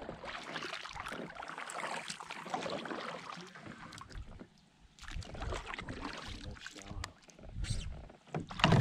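Double-bladed kayak paddle dipping and pulling through calm water, with drips and small splashes coming and going unevenly. A brief louder sound comes right at the end.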